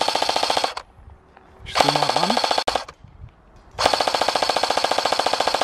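Ares M60 airsoft electric light machine gun firing full-auto in three bursts, a rapid, even, loud clatter. The first burst stops just under a second in, the second lasts about a second, and the third starts near the end and is still going.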